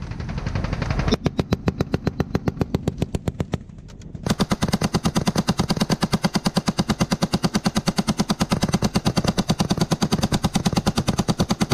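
Belt-fed machine gun on a vehicle mount firing long sustained automatic bursts at about ten rounds a second, louder and sharper from about four seconds in.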